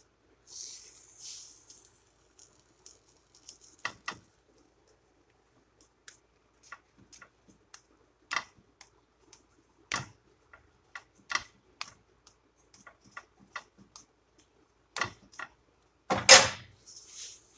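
Slotted metal spatula clicking and scraping against a flat pan while a tortilla is folded and pressed: irregular sharp clicks, a brief scraping hiss about half a second in, and a louder clatter near the end.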